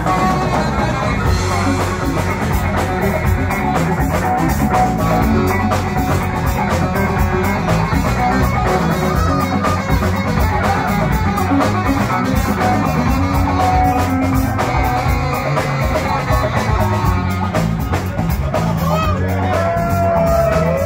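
Live rock band playing an instrumental passage: electric guitar, bass, keyboards and drum kit with a steady beat. A bending melodic line comes in near the end.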